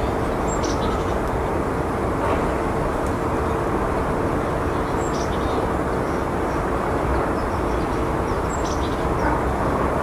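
Steady outdoor background rumble with a faint steady hum in it, and a short faint high chirp three times, about every three and a half seconds.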